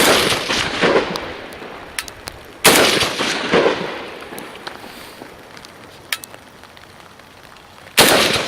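Three rifle shots, the second about three seconds after the first and the third about five seconds later, each report trailing off over a second or so.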